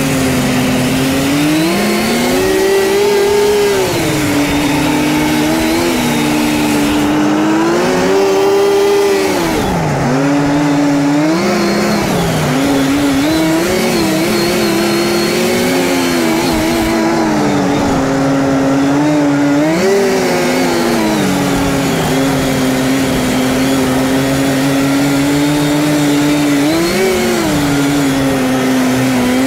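Two-stroke engine of a 1979 Scorpion Whip TKX snowmobile running under way, its pitch rising and falling several times as the throttle is opened and eased off.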